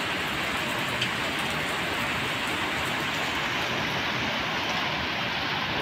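Heavy typhoon rain and strong wind, a steady dense rush of noise with fine drop ticks throughout and a brief knock about a second in.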